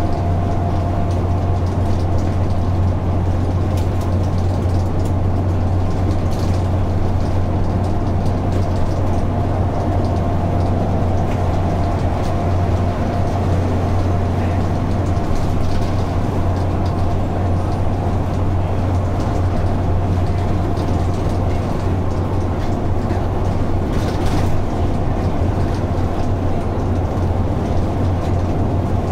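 Simulated Dennis Dart single-deck bus driving along at a steady pace: a constant low engine drone with a steady high whine over it, heard from inside the passenger saloon.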